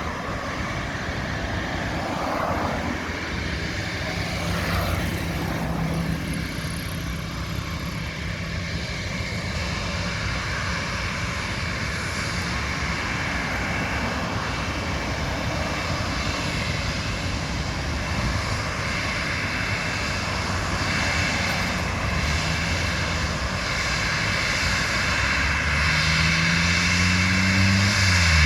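Twin-engine airliner's engines running steadily. Their pitch rises over the last few seconds, then sweeps sharply down right at the end as the aircraft goes past.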